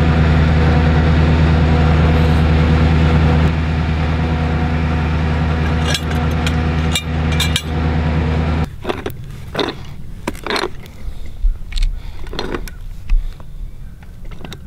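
A truck engine idling with a steady hum, with a few sharp clicks over it; the hum stops abruptly about two-thirds of the way through. After that come scattered metallic clinks and knocks of a pipe wrench on galvanized steel fittings at a well cap.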